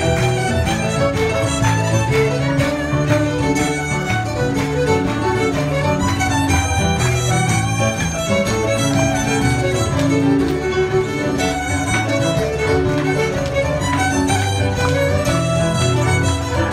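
Cape Breton fiddle music: fiddles playing a fast tune with a steady beat, over keyboard (piano) chording.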